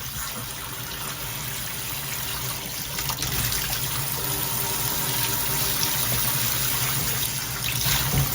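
Shower head spraying a steady stream of plain water in regular-shower mode, over a low steady hum; it gets slightly louder about three seconds in.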